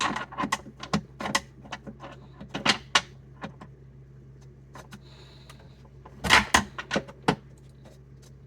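Irregular hard clicks and knocks from a refrigerator's glass shelf and its plastic clips being pushed and pried at, in a rapid run for the first few seconds and another burst about six seconds in.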